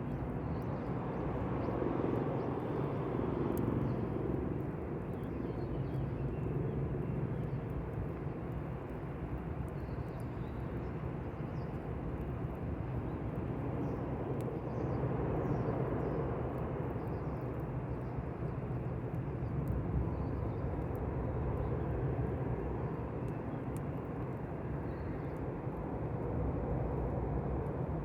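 Campfire burning: a steady low rushing sound with faint, scattered sharp crackles.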